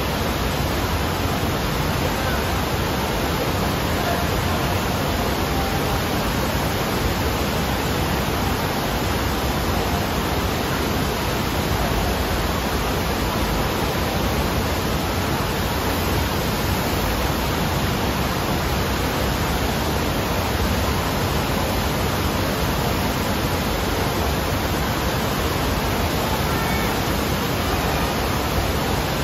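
Steady rushing of water from an indoor surf machine's sheet wave, a thin sheet of water pumped at speed up an inclined ride surface, running evenly without a break.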